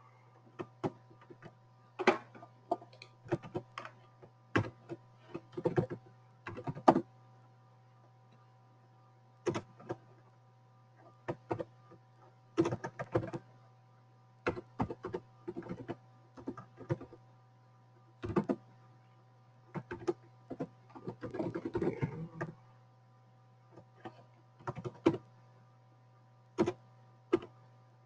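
Computer keyboard typing: keystrokes come in short, irregular bursts with pauses between them, over a steady low hum.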